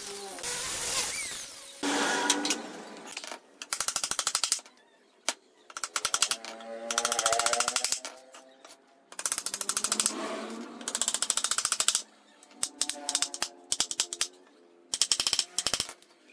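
An angle grinder with a sanding disc winds down in falling pitch in the first second. Then a claw hammer drives nails into a wooden chair frame in repeated bursts of fast taps, one burst per nail, with short pauses between them.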